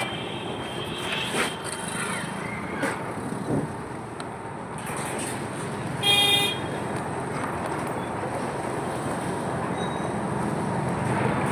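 Street traffic noise with a vehicle horn honking once, briefly, about six seconds in.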